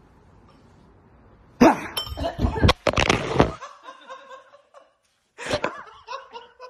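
A sudden loud startled shriek with clattering about a second and a half in, followed by laughter.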